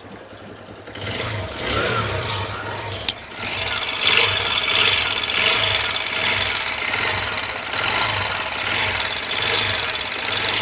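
TVS Star City Plus BS6's 110 cc single-cylinder four-stroke engine running with a harsh rattle from the cylinder head, getting louder about a second in and again about four seconds in, with a sharp click just after three seconds. The mechanic traces the rattle to a slack cam timing chain with a sticking tensioner, after tappet adjustments and an earlier chain replacement failed to cure it.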